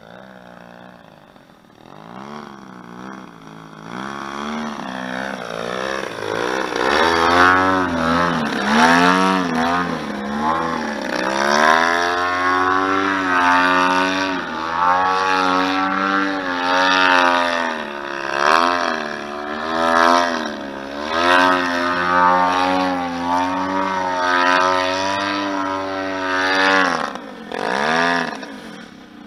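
DLE 111 twin-cylinder two-stroke gasoline engine on a 107-inch Pilot Edge RC aerobatic plane in flight, its pitch rising and falling constantly as the throttle is worked through 3D manoeuvres. Faint at first, it grows loud over the first several seconds, then swells and fades in a quick series of pulses in the second half.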